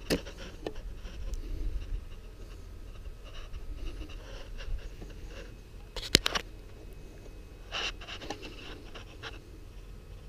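Handling noise of hands on a handheld drone controller and the camera filming it: scattered taps, scratches and rustles, the loudest a quick cluster of clicks about six seconds in, over a steady low rumble.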